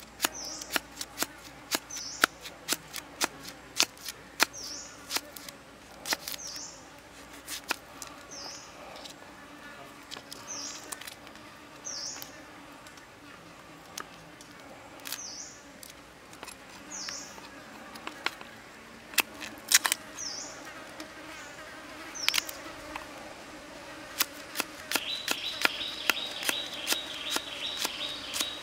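Large knife slicing garlic and ginger on a thick wooden chopping block: sharp, irregular clicks as the blade strikes the wood. A short high chirp repeats about once a second, and a steady high insect buzz joins near the end.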